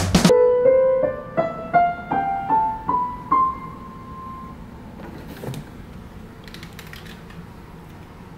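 Drum-heavy rock music cuts off abruptly at the very start. Then a digital piano plays a rising scale of about nine single notes, the last one held and dying away. After that there is only room tone with a few light clicks.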